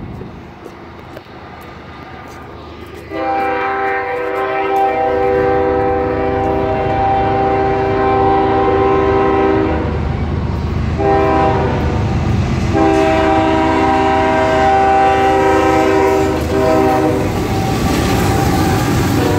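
CSX diesel freight locomotive's multi-note air horn sounding for a grade crossing: a long blast, a short blast, then another long blast. Under the horn, the rumble of the approaching locomotive builds as it reaches the crossing.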